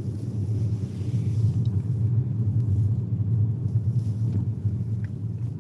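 Steady low rumble of a car driving along a highway.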